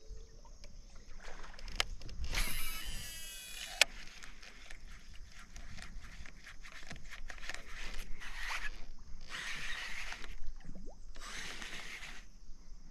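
Baitcasting or spinning fishing reel in use from a kayak: a cast with line running off the spinning spool from about two to four seconds in, then scattered clicks and several short bursts of reel winding during the retrieve.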